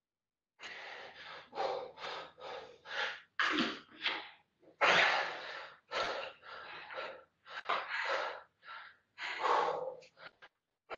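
A woman's heavy breathing close to the microphone, a string of quick, uneven breaths in and out as she catches her breath after hard exertion.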